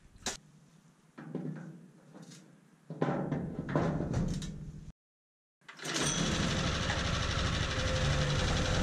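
Plastic grass box being handled and fitted onto a Swardman Edwin reel mower: a sharp knock, then clattering and hollow clunks. After a short break, the mower's Briggs & Stratton petrol engine runs steadily from about two-thirds of the way in.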